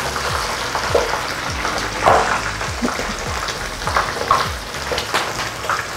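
Whole banana prawns frying in shallow hot oil in a small frying pan: a steady sizzle with scattered pops.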